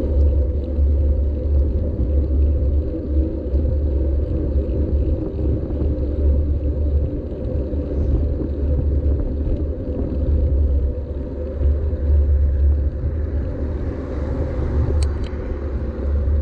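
Wind rumbling over a bicycle-mounted GoPro's microphone at riding speed, with a steady hum of tyres rolling on the road. A hiss swells up near the end, with a couple of sharp clicks.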